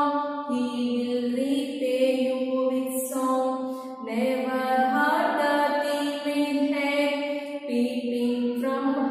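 A woman singing lines of a children's poem in a slow, chant-like tune, holding long notes, with short breaks between lines.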